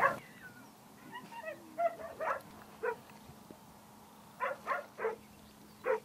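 English pointer on the leash giving short, high whines and yips: a few scattered calls, then a quick run of three near the end.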